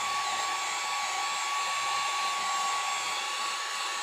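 Heat gun blowing on its low setting: a steady rush of hot air with a steady whine running through it.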